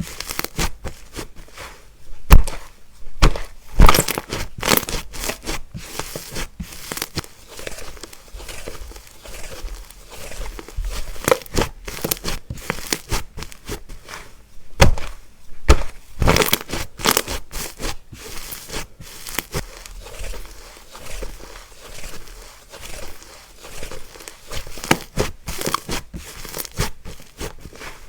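Slime being squeezed, stretched and poked by hand, giving a steady run of irregular sticky clicks, pops and crackles, with a few louder snaps now and then.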